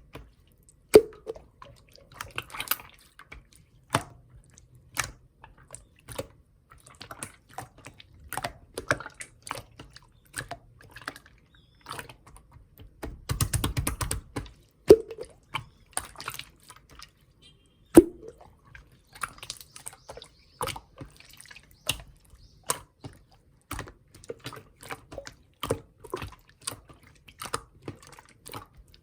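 Slime being squeezed and pressed by hand, making irregular wet clicks and squishy pops as trapped air bursts, with three louder pops among them.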